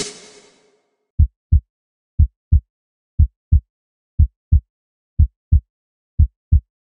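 Heartbeat sound effect: pairs of short, low thumps in a lub-dub rhythm, one pair each second, six in all. The tail of electronic dance music fades out in the first half-second.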